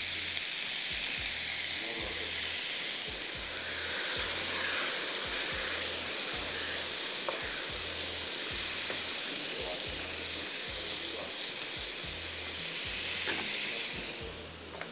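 Food frying in hot oil in a pan, a steady sizzle with occasional stirring.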